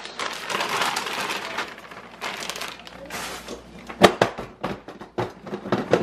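Plastic gallon bag crinkling as seasoned beef stew meat is emptied out of it into a slow cooker's crock, then several sharp knocks against the crock about four seconds in and near the end.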